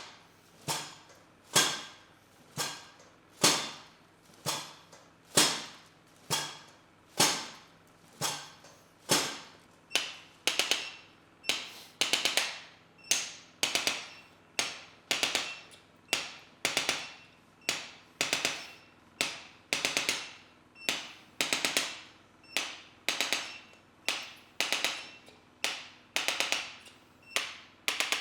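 Rhythmic sharp taps, about one a second, each fading quickly. From about ten seconds in, each tap becomes a quick cluster of several taps.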